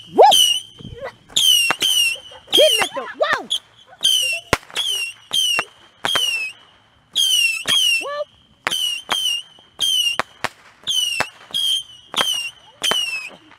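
Ground firework firing a rapid string of small whistling shots, about two a second. Each shot is a sharp pop with a short whistle falling in pitch.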